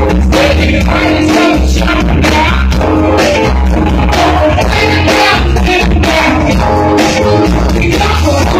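A live band playing an upbeat tune, with saxophones, electric keyboard, electric guitar and drums keeping a steady beat.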